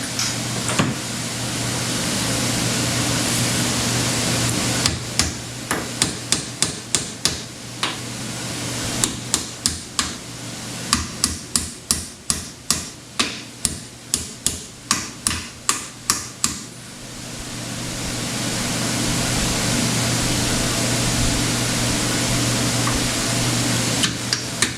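Runs of hammer blows, about two to three strikes a second, between stretches without blows, over a steady machine hum.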